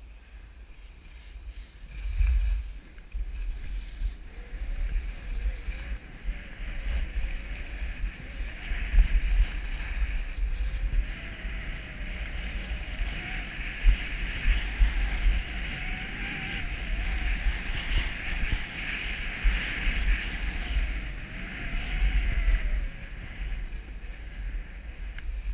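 Skis sliding and scraping over tracked piste snow on a downhill run, a steady hiss that grows stronger partway through and eases near the end. Wind buffets the camera microphone as a gusty rumble underneath.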